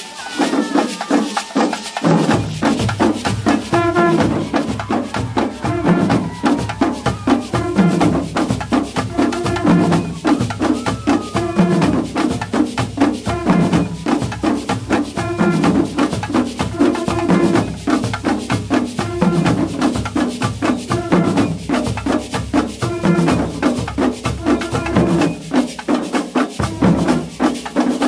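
Carnival street percussion band: many skin drums beaten with sticks in a fast, dense, driving rhythm. Over it runs a low melodic line that repeats every couple of seconds; it comes in about two seconds in and drops out briefly near the end.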